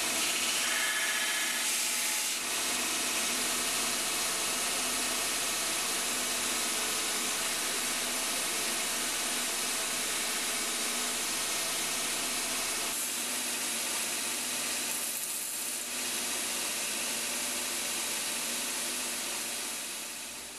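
Electric abrasive machine running steadily, with a workpiece rubbing against it in the cutler's trade. The sound fades near the end.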